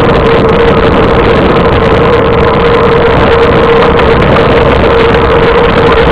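Wind rushing over the microphone of a camera on a bicycle descending at speed: loud, steady and unbroken, with a steady hum running under it.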